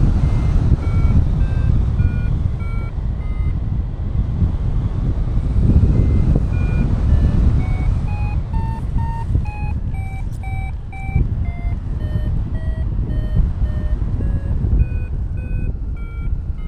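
Paragliding variometer beeping about every half second or so, its pitch moving up and down with the climb rate, signalling that the glider is climbing in lift; the beeps stop for about two seconds after the first few, then resume. Heavy wind noise on the microphone from the airflow.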